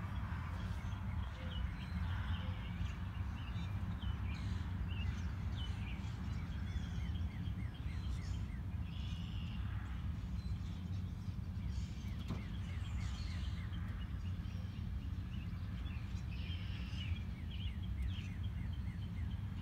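Several wild birds calling and singing: short chirps and quick trills that come and go, over a steady low hum.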